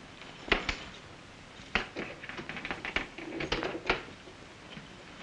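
Steamer trunk being rummaged through: a string of light, irregular clicks and knocks as things in its top tray and its metal fittings are handled.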